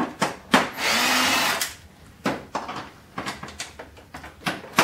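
Power drill-driver running for about a second, backing out a screw from a photocopier's casing, with sharp clicks and knocks of screws and plastic parts being handled before and after.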